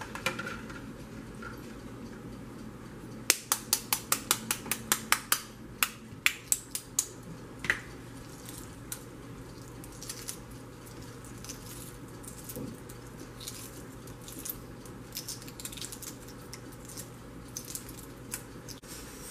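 Hard-boiled egg shell being cracked with a rapid run of about fifteen sharp taps, then the light crackle and ticking of the shell being peeled off by hand.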